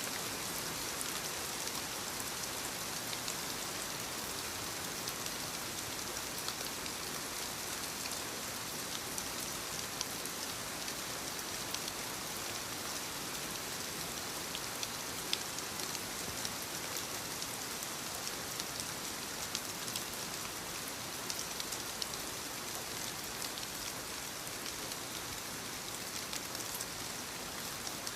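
Steady rainfall: an even hiss with many small, sharp drop ticks scattered through it.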